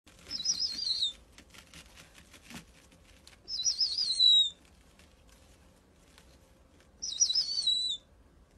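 An owl giving three high, warbling calls about a second long, each wavering and then sliding down at the end, spaced a few seconds apart, with faint rustling and clicks between the first two.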